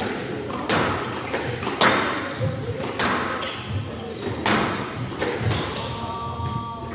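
Squash ball struck by rackets and hitting the court walls in a rally: sharp hits about once a second, the loudest about two seconds in.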